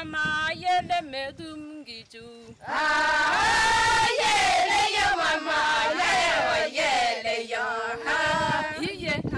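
A chorus of women's voices singing a chant together. One voice comes first, then many voices join in loudly about three seconds in and carry on almost to the end.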